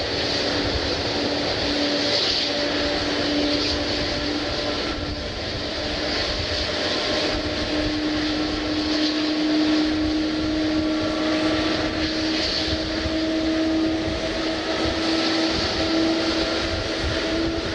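Jet airliner engines running: a steady rushing noise with a low hum that slowly rises in pitch.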